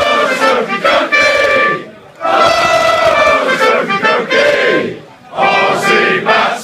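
A crowd of men loudly chanting a song together, in phrases of about two to three seconds with short breaks between them.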